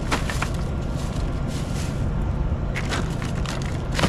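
Hands rummaging in a cooler packed with ice: ice crunching and rattling and a plastic bag crinkling, with scattered clicks and a sharper knock near the end, over a steady low rumble.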